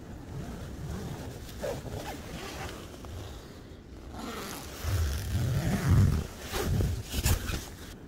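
Nylon tent fabric rustling and being handled, then the tent door zipper being pulled open in several quick strokes near the end.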